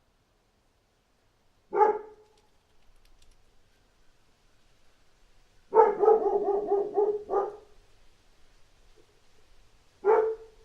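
A dog barking: a single bark about two seconds in, a quick run of several barks around the middle, then another single bark near the end.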